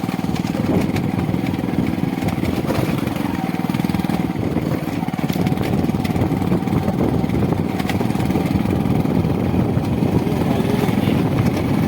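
A vehicle engine running steadily, with a fast even pulsing throughout.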